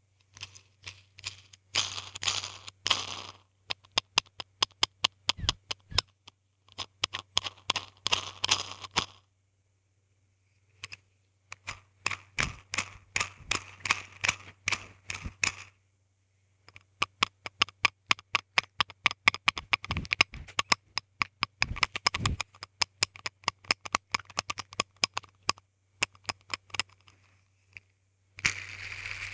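Hand spinner handled close to the microphone: quick runs of sharp clicks and taps, each run lasting a few seconds, separated by short pauses. A faint low hum underneath.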